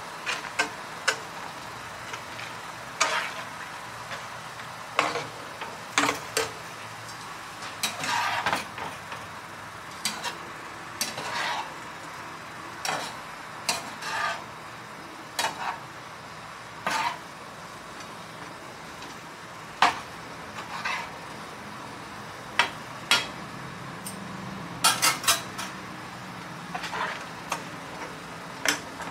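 A metal spoon stirring a cheese sauce in a nonstick frying pan, with irregular clinks and scrapes against the pan over a steady low sizzle.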